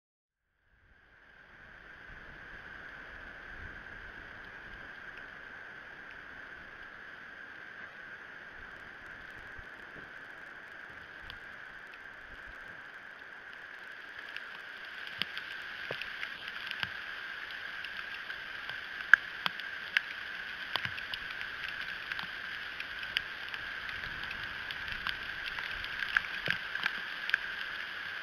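Ice pellets striking the sticks of a bald eagle nest and the sitting eagle's feathers: irregular sharp ticks over a steady hiss. About halfway through the ticks come thicker and louder, several a second.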